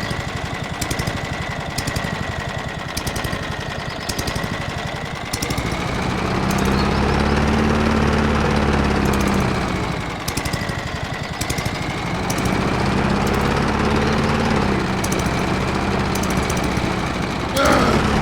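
Lawn mower engine running steadily, getting louder and heavier about six seconds in, dipping briefly a few seconds later, then running strong again. A voice breaks in near the end.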